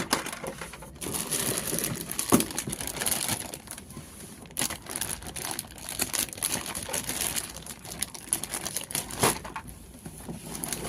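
Packaging of a miniature toy kitchen set crinkling as it is unboxed by hand, with a few sharp clicks.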